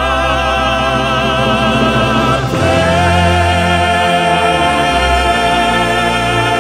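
Music: singing voices hold long notes with heavy vibrato over sustained chords, and a new chord with a fuller bass comes in about two and a half seconds in.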